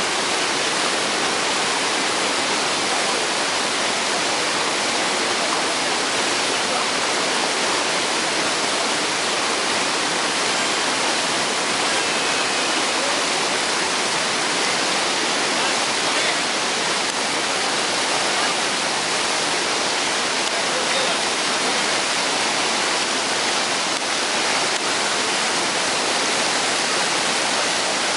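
Dudhsagar Falls, a tall waterfall, pouring steadily: a loud, unbroken rush of falling water.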